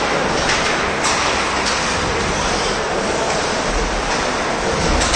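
Steady noisy hiss of an ice hockey game in play: skates scraping across the ice, with a few faint knocks.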